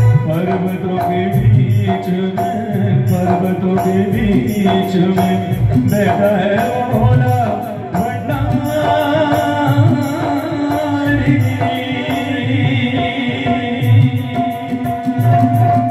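Live devotional bhajan music played through a PA system: a dholak-style hand drum keeps a steady beat with bright, fast percussion on top, under a continuous keyboard or vocal melody.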